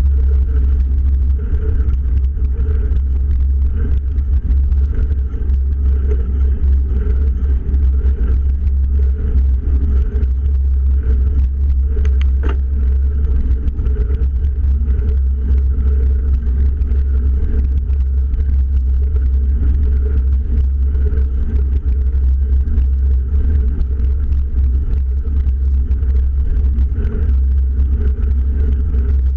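Steady low rumble of wind buffeting the microphone on a bicycle riding downhill, mixed with the tyres rolling over a gravel dirt road.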